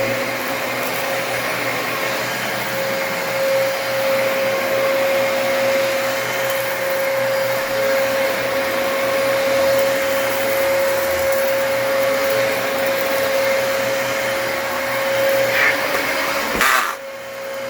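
Dyson DC33 upright vacuum cleaner running on a rug, a steady whine over the rush of air. The sound drops off briefly near the end, then carries on.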